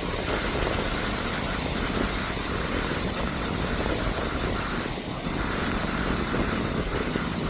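Strong gusty wind blowing across the microphone: a steady rushing noise with a heavy, fluttering rumble underneath.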